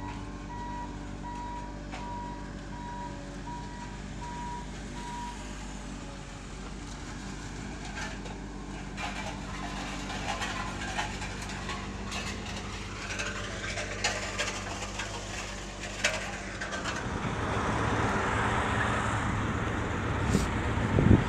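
A truck engine running steadily, with a reversing beeper sounding for the first five seconds or so. From about eight seconds in there are scattered scrapes and knocks over the engine, and near the end a louder rushing noise takes over.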